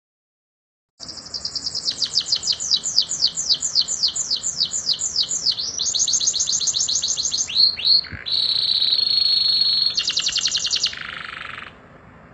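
Domestic canary singing a long rolling song, starting about a second in: a run of rapid repeated high notes, two short down-slurred notes, a steady held whistle, then a fast trill.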